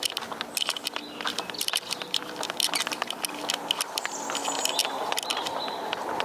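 Footsteps of a person walking on a tarmac road, a steady run of short scuffing clicks.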